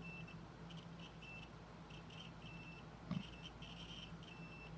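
Digital multimeter's continuity beeper sounding in short, broken beeps that cut in and out irregularly as the probes make and lose contact with a wire, signalling a low-resistance path. A soft knock about three seconds in.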